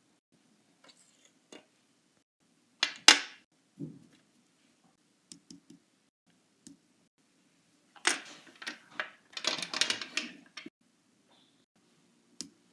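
Fidget toys being handled: scattered clicks and knocks, with a longer burst of clattering and rustling about eight seconds in.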